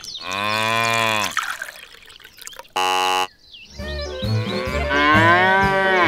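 Cow mooing twice: one long moo near the start and a second over music near the end. A short, steady electronic beep sounds about three seconds in.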